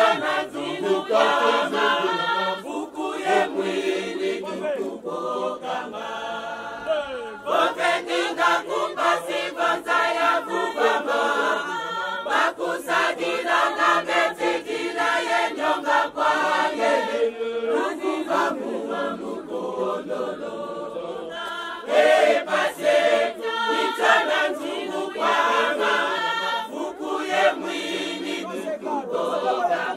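A mostly female choir singing together, with no instruments audible.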